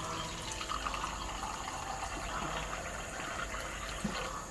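Water running from the tap of a Nazava gravity water filter into a small cup, a steady trickle as the cup fills.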